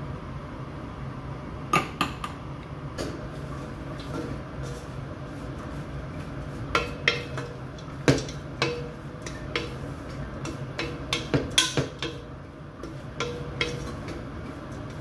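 Wooden spatula stirring coarsely ground peanuts in a nonstick pot, scraping and knocking against the pot with irregular clicks. Some knocks ring briefly. A low steady hum runs underneath.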